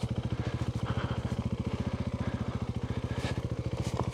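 Adventure motorcycle engine idling: a steady, even pulse of firing strokes. A couple of short clicks near the end.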